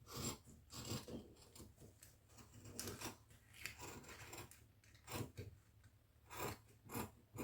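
Scissors cutting through fabric: a series of irregularly spaced snips.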